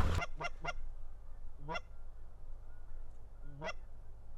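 Geese honking: two short honks about half a second in, then two longer rising honks, one near the two-second mark and one near the end.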